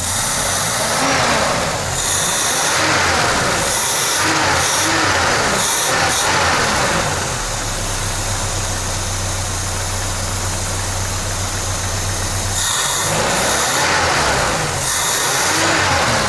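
Peugeot 505 ST's engine on a freshly swapped carburetor, blipped up and down several times, settling back to a steady idle midway, then revved again near the end. The owner finds the engine dull on the new carburetor.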